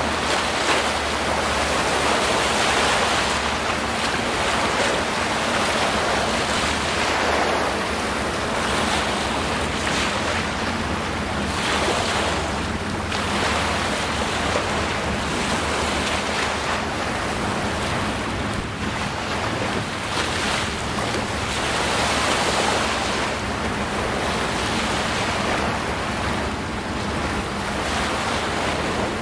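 Small wind-driven waves of flood water washing onto a paved shore, with wind buffeting the microphone; a continuous, gently swelling rush.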